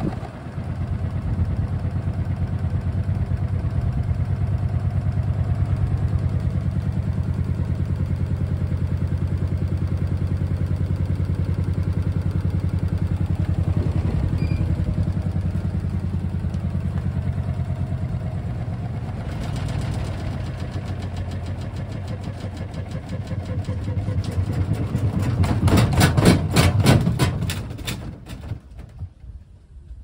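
Bosch EcoSilence Drive front-loading washing machine spinning with its balance sensor switched off: a steady drum-and-motor hum with a rapid rhythmic thudding. Near the end it knocks loudly for a few seconds, then the sound dies away.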